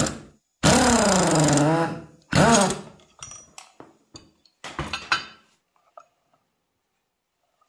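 A power tool drives the centre screw of a crankcase splitter puller in about three bursts, its motor pitch wavering under load as the two-stroke crankcase halves are forced apart. A few light metal knocks and clinks follow as the freed aluminium case half is handled.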